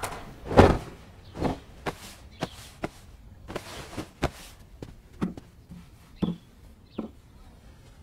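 A heavy thud about half a second in, then scattered light knocks and taps with soft rustling, from housecleaning: a bedspread being smoothed and things handled on wooden furniture.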